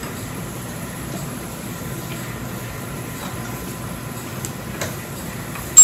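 Steady background hum of lab ventilation while a bench vise is turned to clamp a stainless-steel reactor shut, with a few faint metal clicks and one sharp metallic clink at the very end.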